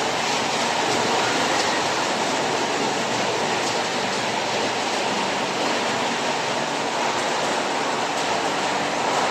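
Industrial wood-recycling machine running: a steady, dense noise without pauses, with a few faint knocks.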